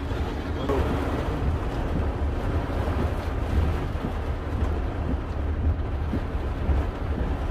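Car driving in rain: a steady low rumble of engine and road under an even hiss of rain and wet tyres.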